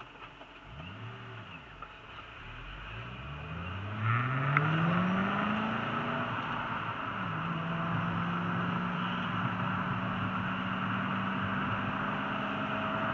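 Ford GT's engine pulling away from a stop: a short rise and fall in pitch about a second in, then a steady climb in pitch for a few seconds as the car accelerates. It drops at an upshift about seven seconds in and holds a steady note while cruising, with tyre and wind noise rising with speed.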